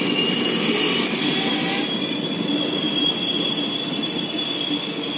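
Indian Railways passenger train running, heard from the open carriage doorway: a steady rumble of wheels on the rails with high, steady wheel squeal.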